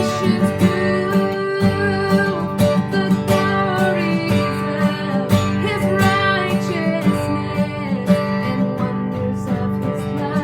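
Worship band music led by strummed acoustic guitar, with a sung or melodic line over it.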